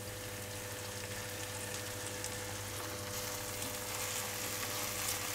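Balsamic vinegar sizzling in a hot frying pan with chopped shallot, stirred with a silicone spatula. The sizzle is a steady hiss with faint ticks and grows a little louder about three seconds in.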